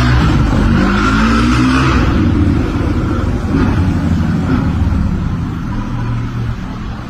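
A motor vehicle engine running loud and close, with some rise and fall in pitch, easing off near the end.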